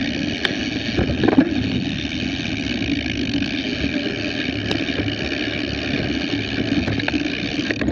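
Mountain bike riding a dirt singletrack trail, heard through an action camera: a steady rushing rumble, with a few sharp knocks and rattles over bumps, the loudest about a second in.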